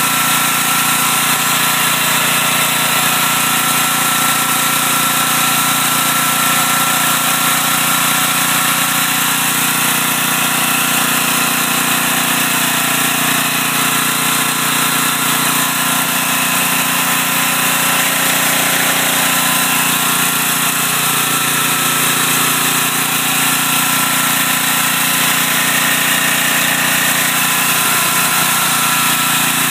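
Generator engine running steadily under a heavy electrical load.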